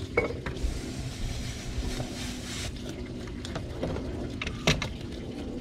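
A knife knocking on a cutting board a few times as fish is cut, the sharpest knock near the end, over a steady low rumble.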